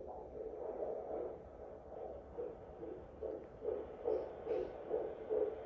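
Fetal heartbeat through a Doppler monitor's speaker. Whooshing first, then fast, even beats settling in from about three and a half seconds in, at about 140 a minute, a rate read out as 142 and called perfect.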